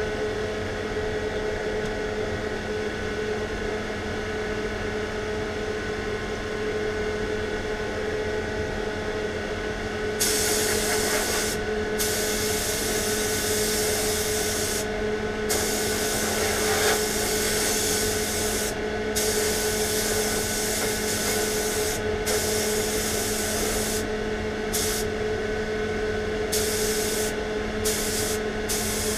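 Compressed-air paint spray gun hissing as clear lacquer goes onto a panel. The hiss starts about ten seconds in and cuts out briefly about eight times as the trigger is released between passes. A steady machine hum with a low tone runs underneath.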